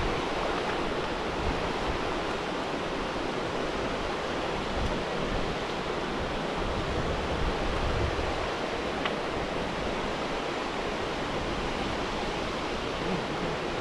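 Steady rush of water spilling over a weir, an even roar that holds the same level throughout.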